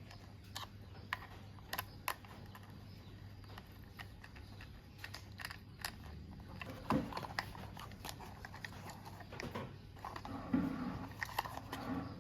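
Scattered clicks and taps of plastic toy pieces being handled and fitted together, with a short lower-pitched sound near the end.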